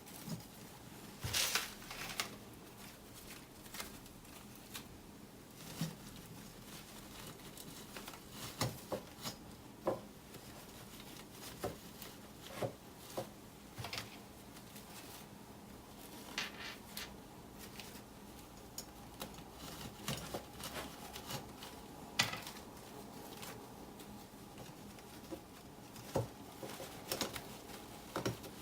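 Flower stems being handled and pushed into a vase: light rustling with scattered soft clicks and taps, one every second or two.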